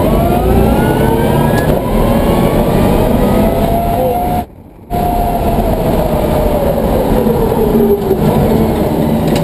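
Twin NetGain Warp 11-inch DC electric motors of a converted BMW M3 race car whining under acceleration, the pitch rising, over road and tyre noise. The sound drops out for about half a second just after the middle, then the whine falls steadily in pitch.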